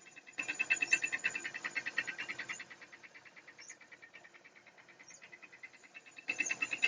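Honda CBF Stunner's single-cylinder engine running with a rapid, even metallic ticking. The ticking gets much louder twice: from about half a second in for two seconds, and again near the end. This is the knocking of piston slap.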